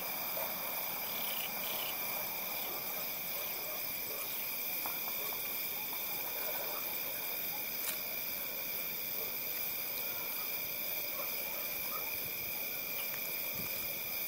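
Night outdoor ambience: a steady chorus of crickets trilling at several high, unchanging pitches, with a few faint short animal calls and one brief click about eight seconds in.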